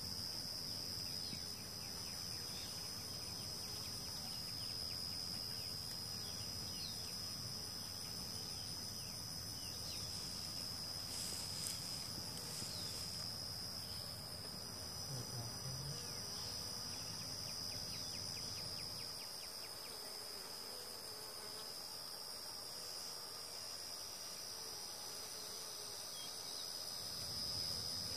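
Insects trilling steadily at a high pitch, with a low rumble underneath that drops away for several seconds in the last third.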